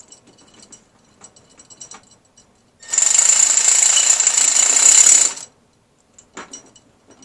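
A 3/8-drive ratchet working through a Tite Reach extension to run a bolt back in: light scattered clicks at first, then about three seconds in a loud, fast, continuous ratcheting rattle for roughly two and a half seconds, and a few single clicks near the end.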